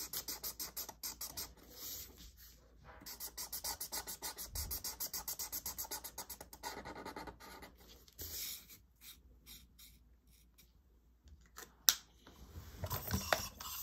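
Thin felt-tip marker scratching on paper in rapid back-and-forth colouring strokes, thinning out and stopping about eight seconds in. A single sharp click comes near the end.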